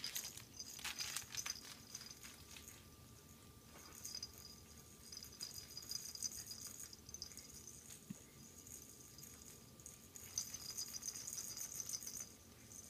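A small toy rattle shaken in three short spells, giving a light, high, jingling rattle: about a second at the start, again for a few seconds mid-way, and again near the end.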